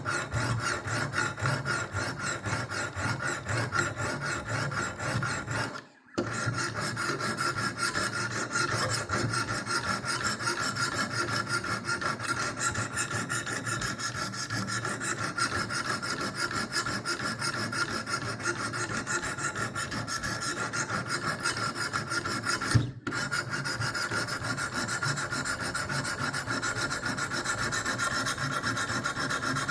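Diamond stones of a Wicked Edge WE60 guided knife sharpener scraping back and forth along the steel edge of a blunt butter knife in quick, steady strokes, grinding a new edge. The strokes stop briefly twice, about 6 seconds in and again about 23 seconds in.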